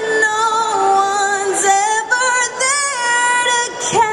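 A young woman singing a cappella into a handheld microphone, with no accompaniment. She holds long notes and moves between them with short vocal runs.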